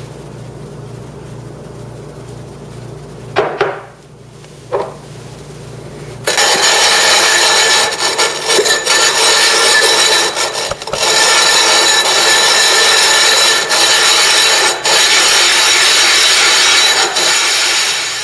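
The cut rim of a green glass bottle being ground in circles on plate glass with wet silicon carbide grit: a loud, continuous gritty scraping that starts about six seconds in, after two brief knocks. It grows a little softer near the end as the edge is lapped flat.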